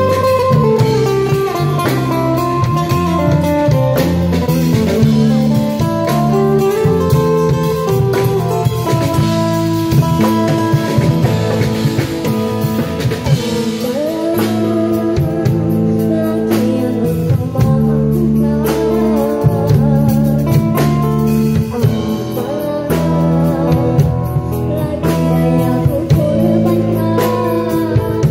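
Live band music: a young girl singing a Malay song through a microphone, with acoustic guitar and a drum kit accompanying her.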